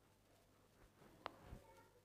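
Near silence, with one faint sharp click a little past halfway and a soft low thump just after it.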